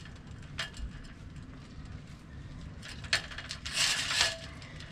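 Rope and rigging being handled while a Hobie 16's jib sheet is untangled: a rasping rub of line sliding over the boat near the end, with a couple of sharp clicks of fittings before it, over a low rumble of wind on the microphone.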